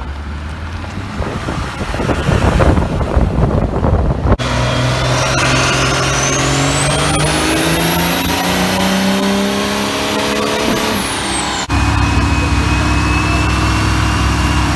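Diesel pickup trucks under hard throttle, in three short clips. First a truck revving, its exhaust noise swelling. Then a diesel Ram on a chassis dyno makes a pull: the engine pitch climbs and a turbo whistle rises to a high steady pitch, then cuts off suddenly as the throttle is released. Then a diesel Ford Super Duty runs steadily on the dyno, its turbo whistle starting to rise near the end.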